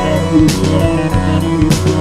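Instrumental background music: guitar over a drum beat, with cymbal-like hits about half a second in and again near the end.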